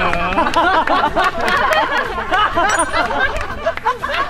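A group of young men laughing together, several voices overlapping in continuous laughter and chatter.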